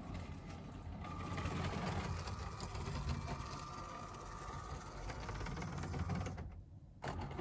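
LEGO metro train running on plastic track, its Powered Up train motor whirring with the wheels rumbling along the rails. The sound breaks off briefly about six and a half seconds in, then resumes.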